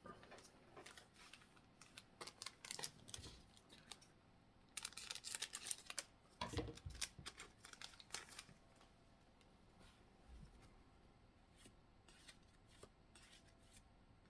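Faint handling of a Pokémon trading card booster pack and its cards: scattered clicks and rustles, busiest about five to six seconds in.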